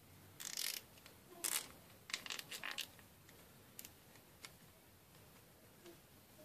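A nylon zip tie being pulled tight around a brushless motor's cable: several short ratcheting rasps in the first three seconds, then a few faint clicks.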